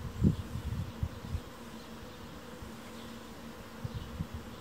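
A bee buzzing steadily in a faint, even hum. Low rumbles of wind on the microphone come and go during the first second and a half.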